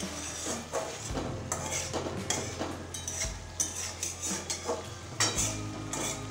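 A spatula scrapes and stirs thick masala around a metal kadai, making irregular scrapes and knocks against the pan over a light sizzle of hot oil. The spices are being fried down until the oil separates from the masala.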